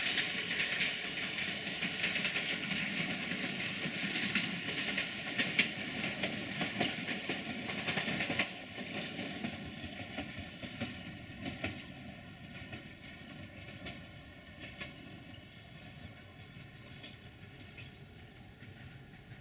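A train rolling along the track, with wheels clicking over rail joints. It drops sharply about eight seconds in, then fades away as it moves off.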